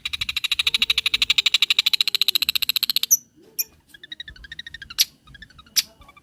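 Long-tailed shrike (cendet) singing: a fast, even rattling trill of about fifteen notes a second for about three seconds, then short calls and two sharp clicks near the end.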